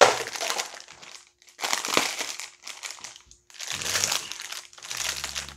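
Black plastic blind bag of a Funko mystery mini crinkling in about five bursts as it is opened by hand and the figure is worked out of it.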